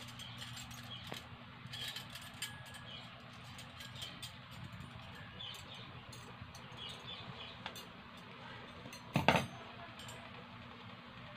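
Steel wire beaters of an electric hand mixer clicking and clinking as they are handled and pushed into the mixer's sockets, with one louder knock about nine seconds in.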